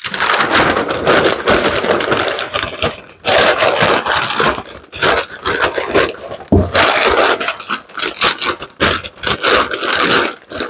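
Oil-wetted butcher paper rustling and crinkling as it is folded and wrapped around a slab of smoked pork belly, in long loud bursts with short pauses. There is a single thump about six and a half seconds in.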